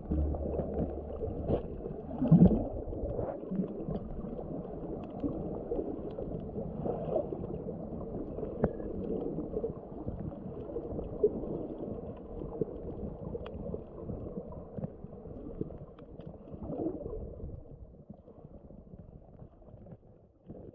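Muffled underwater sloshing and gurgling of shallow sea water surging over rocks, heard through a waterproof compact camera's microphone, with a few faint sharp clicks. It fades near the end.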